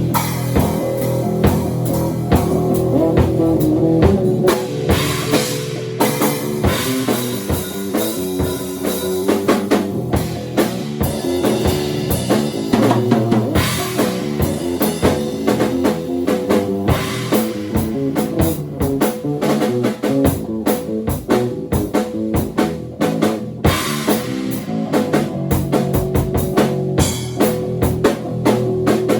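Bass guitar and drum kit improvising together: a busy, quickly changing bass line over steady kick drum and drum strikes.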